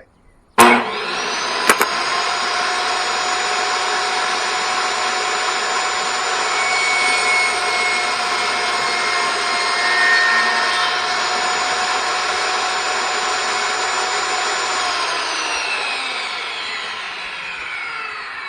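Table saw switched on with a sharp click and running steadily while it cuts a rabbet into a wooden test block, then switched off near the end, its motor winding down with falling pitch.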